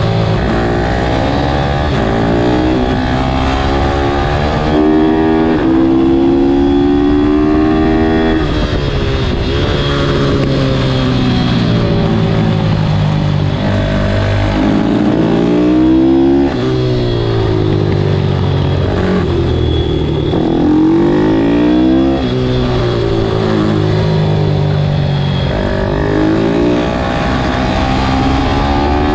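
Race motorcycle engine at full effort on a track, its pitch climbing through each gear and dropping sharply at every shift and every slow-down for a corner, again and again. Steady wind and road noise rush underneath.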